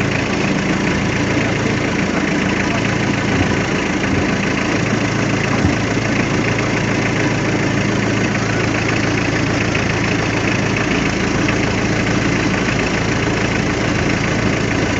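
A small fishing boat's engine idling steadily with an even hum.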